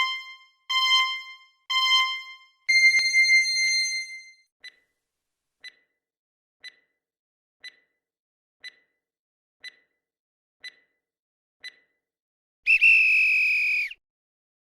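Electronic quiz countdown-timer sound effect. Three short beeps a second apart are followed by a longer, higher tone, then eight faint ticks once a second, ending in a loud buzzer tone of just over a second that signals time is up.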